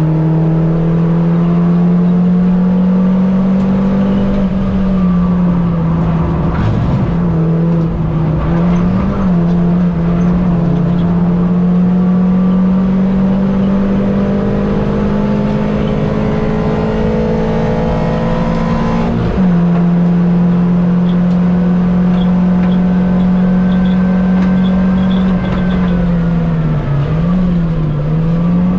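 Mini Cup race car's engine running hard under load, its note climbing slowly. The pitch dips briefly a few times and drops suddenly about two-thirds of the way through, like a gear change. It wavers up and down near the end.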